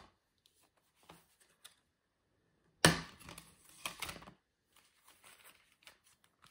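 Plastic 4K Blu-ray case handled on a table: a sharp knock about three seconds in, followed by a second or so of clattering and rubbing, then a few lighter clicks as the case is opened.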